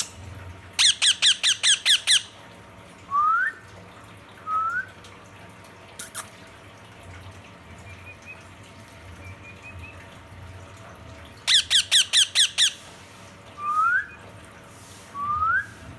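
Ringneck parrot calling to another parrot: two bursts of about seven rapid, harsh squawks some ten seconds apart. Each burst is followed by short rising whistles.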